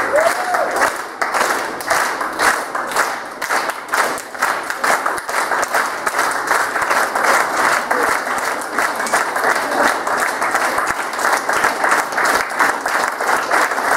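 Audience of schoolchildren applauding: many hands clapping steadily without a break.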